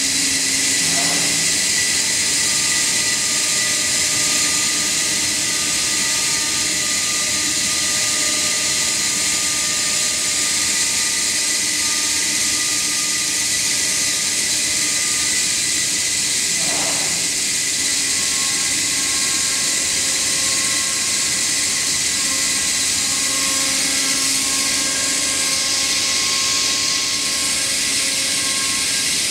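CNC router's spindle cutting through a panel as the gantry travels: a steady, high-pitched hiss and whine. The pitch shifts briefly about a second in and again about 17 seconds in.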